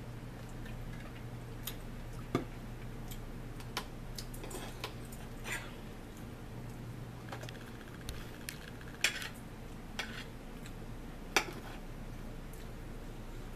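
Metal forks clinking and scraping against a plate and a plastic food container as two people eat, in scattered irregular clinks, the sharpest about two and a half, nine and eleven and a half seconds in. A steady low hum runs underneath.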